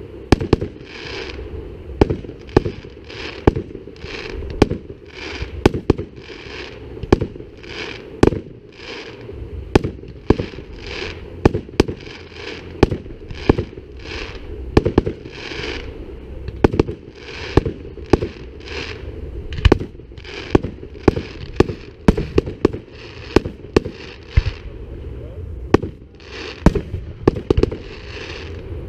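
Aerial fireworks display: a continuous barrage of sharp bangs, about one or two a second, each with a short hissing crackle after it.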